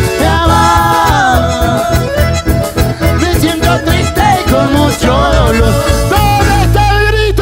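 Live band playing Argentine folk music: accordion and bandoneons over keyboard, bass and a steady beat.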